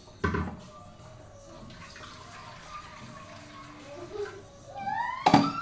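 Water poured from a kettle into a steel cooking pot, with a sharp metal knock about a quarter second in and a louder one near the end, just after a rising tone.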